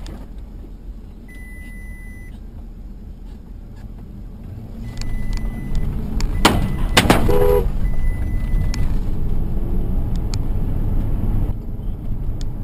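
Car engine and road noise heard from inside the cabin, growing louder about five seconds in as the car speeds up and swerves hard, with a loud jolting burst of noise just after. A few short steady high beeps come and go along the way.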